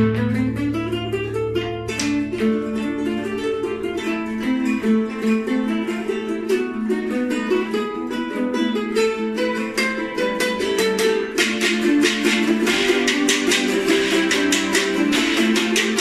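Several small acoustic guitars strummed and picked together in an instrumental passage. The strumming grows denser and brighter about eleven seconds in.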